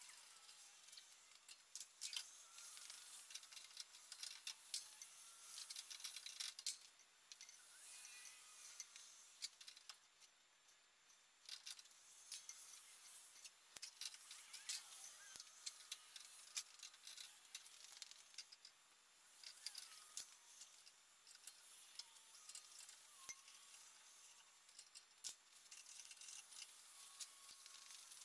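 Faint, scattered metallic clicks and light rattles of hand tools and hardware being handled while working on a truck's front axle.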